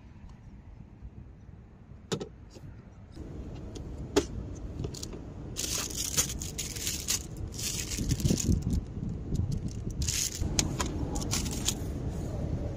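Handling noise: two sharp clicks about two and four seconds in, then a stretch of rustling and clatter from about five and a half seconds on as loose items in the car are moved about.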